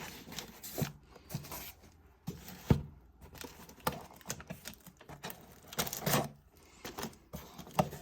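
A mailed package being opened by hand: irregular rustling and tearing of packaging with scattered small knocks and clicks, the loudest a knock about three seconds in and another around six seconds.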